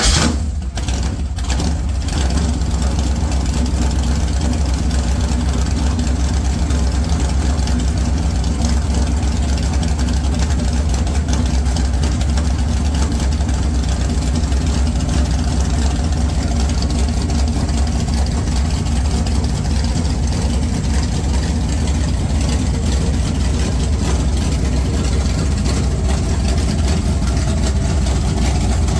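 347 stroker small-block Ford V8 on a cold start, running through open long-tube headers. It has just fired and runs unevenly for the first second or two, then settles into a steady idle.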